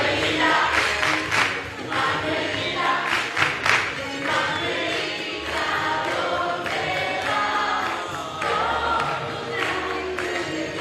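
Music with a group of voices singing together, a lively song.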